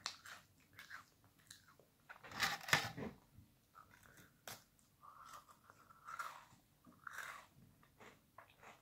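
A person biting and chewing crisp Lotus Biscoff caramelised biscuits, a run of short dry crunches. The loudest crunching comes about two and a half seconds in.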